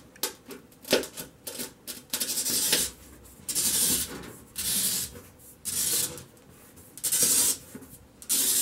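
Glass cutter wheel scoring a sheet of opaque glass: a few clicks, then several short gritty, hissing strokes as the wheel is drawn along the score line. In one stretch the score sounded off to her, and she is not sure the score line came out even.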